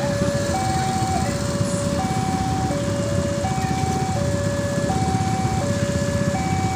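Railway level crossing warning alarm sounding its electronic two-tone signal: a low note and a higher note alternating about every three-quarters of a second, the warning that a train is approaching. A steady low rumble runs underneath.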